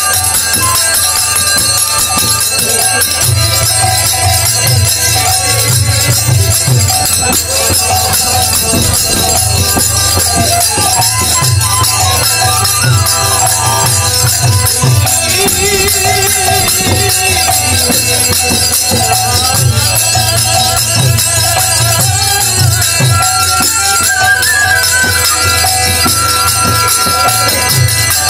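Devotional kirtan music without singing: a bamboo flute plays a wavering melody over held harmonium notes, with brass hand cymbals (kartal) clashing steadily and low drum strokes beneath.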